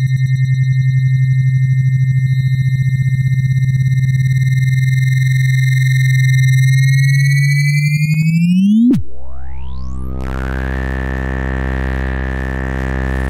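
Oscilloscope music: synthesized electronic tones whose left and right channels draw pictures on an oscilloscope in X-Y mode. A low, buzzing tone with a fast flutter and bright high overtones glides upward about nine seconds in, then switches abruptly, with a quick rising sweep, to a dense chord of steady tones.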